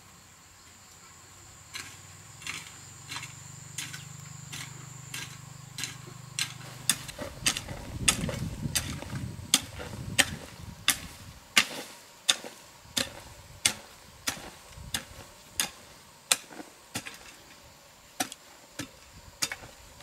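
A steady series of sharp strikes, about three every two seconds, beginning about two seconds in and loudest around the middle. A low hum sits under the first several seconds.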